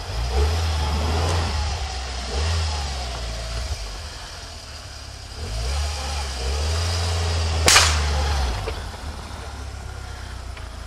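UAZ off-roader's engine revving in repeated surges as it drives through deep snow, with a single sharp crack about three quarters of the way in.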